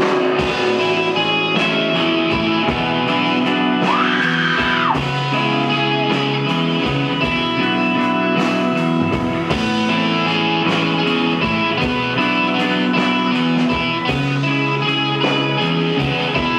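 Live rock band playing an instrumental passage between vocal lines: electric guitar over steady drums, with a note that swoops up and back down about four seconds in.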